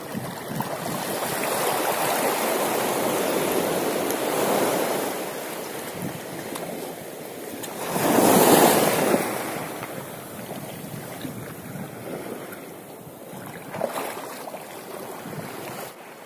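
Sea waves washing, with wind on the microphone. The water swells and fades, loudest in one big wash about eight seconds in, and there is a brief knock near the end.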